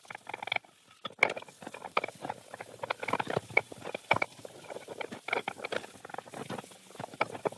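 Wet cast iron universal-vise parts knocking, clinking and scraping against each other and a plastic tub of engine cleaner as they are handled, in many quick light knocks.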